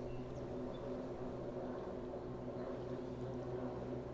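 Steady low hum of the Cape Cod Canal railroad lift bridge's lift machinery running.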